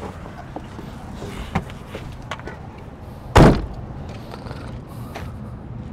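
Cab door of a 2018 International 4300 box truck slammed shut once, a single loud bang about three and a half seconds in. A few faint knocks come before it.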